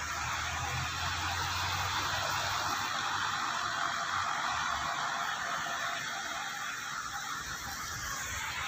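Steady hiss of rain heard from inside a vehicle, with a low engine hum under it that fades about halfway through.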